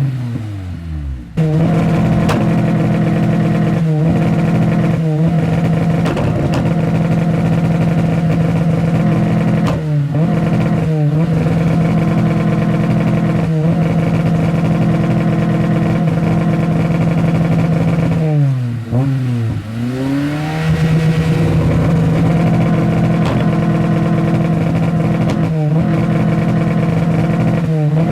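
Honda S2000's four-cylinder engine revved and held at a steady high pitch, with brief drops in revs that climb straight back every few seconds. The longest dip comes about two-thirds of the way in, and a sharp drop near the start falls almost to idle before jumping back up.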